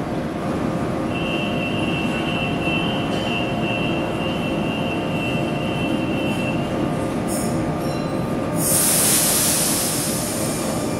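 Two coupled Sydney Trains Millennium (M-set) double-deck electric trains pulling out of a platform: a steady rumble with motor tones. A high steady squeal starts about a second in and lasts about six seconds. Near the end a loud hiss of air begins.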